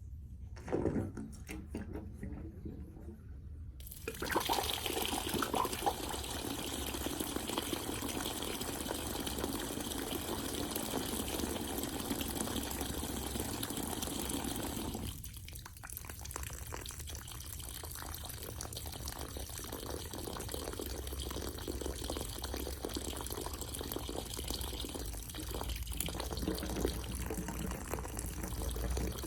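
Water rushing out of a water heater's pressure relief valve drain line. It starts abruptly about four seconds in and drops to a weaker, uneven flow about halfway through.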